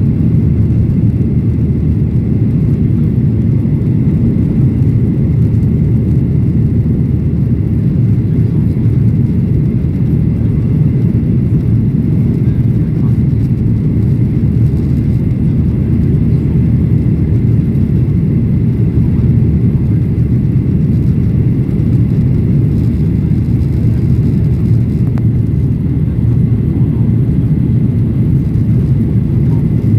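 Boeing 737-800 cabin noise in the climb: a steady low drone of its CFM56-7B engines and airflow, heard inside the cabin, with a faint steady high whine over it.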